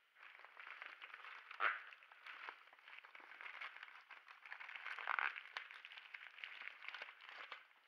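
Plastic mailing bag being pulled and torn open by hand, the crinkly plastic packaging rustling and crackling, with two louder crackles about one and a half and five seconds in.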